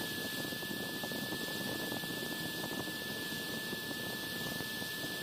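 A small handheld grinder running at a steady speed with a constant high whine, grinding the protruding plastic nub off a die-cast toy car wheel.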